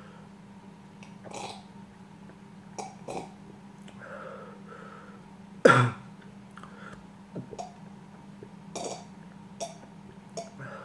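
A person sucking milk up through one nostril from a glass: a string of short, separate sniffs, with one loud throaty burst about halfway through.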